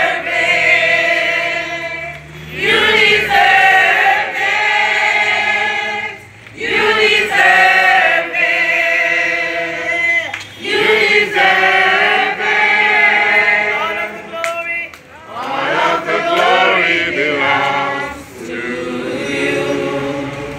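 A group of voices, mostly women, singing a worship song together in loud phrases of about three to four seconds, with short breaks between them.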